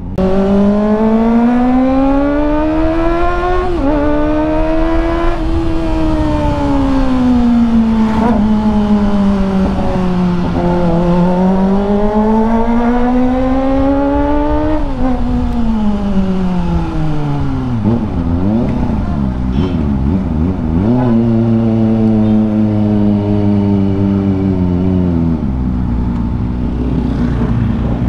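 Kawasaki ZX25R's 250 cc inline-four engine running through an IXIL aftermarket exhaust with the dB killer fitted, as the bike is ridden. The pitch rises and falls slowly several times, drops sharply about halfway, wavers, then settles to a lower, steadier note near the end.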